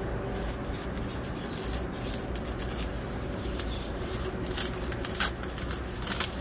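Print packaging being opened by hand: scattered rustling and handling noises, with a couple of sharper crackles a little past the middle, over a steady low hum.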